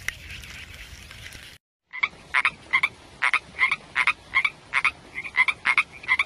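Frog croaking: a run of short, repeated croaks, two or three a second, starting about two seconds in. Before it there is faint outdoor background noise, then a brief silence.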